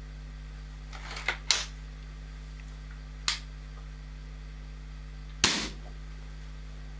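Weihrauch HW99 air rifle with a .20 barrel: a few sharp mechanical clicks about a second in and one more near three seconds, then the loudest report, a sharp crack with a short ringing tail, about five and a half seconds in.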